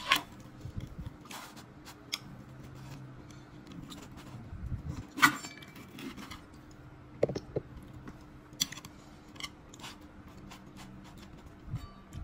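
Chopsticks and a wooden spatula knocking and scraping against a nonstick frying pan as a pizza is cut apart: scattered clicks and taps, the sharpest about five seconds in.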